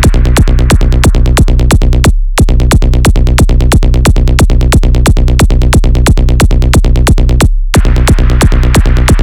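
Electronic dance music in a techno/trance style, with a fast, even, driving beat over heavy bass. The beat cuts out briefly twice, about two seconds in and again about seven and a half seconds in, leaving only the bass before it comes back.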